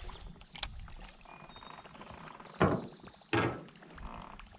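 Two short, loud thumps about two-thirds of a second apart, a little past halfway, over faint water and boat noise.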